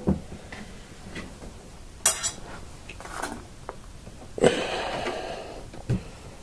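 Handling noise: a knock at the start, a sharp crackle about two seconds in, then a louder clatter with about a second of rustling scrape, and a final knock near the end.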